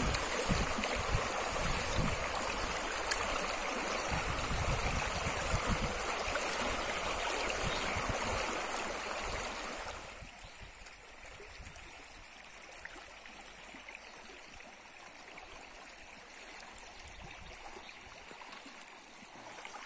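Steady rush of water over a shallow river riffle. About ten seconds in it drops suddenly to a much quieter, more distant flow.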